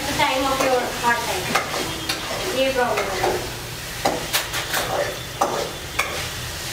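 Metal spatula stirring and scraping food in a steel kadai over a gas flame, with frying sizzle underneath; several sharp scrapes and clicks of the spatula against the pan come in the second half.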